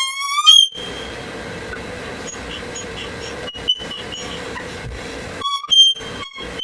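Stool squeaking as someone shifts on it: a loud squeak with a rising pitch at the start and a shorter one about five seconds in, over a steady low hum.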